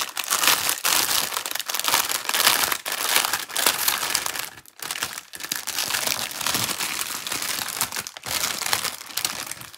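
Plastic packaging crinkling as a long strip of small zip-lock bags of diamond-painting drills is handled, breaking off briefly twice.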